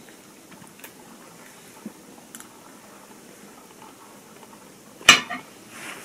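A metal fork picking at food in a plastic takeout tray: a few faint clicks, then one sharp clack about five seconds in.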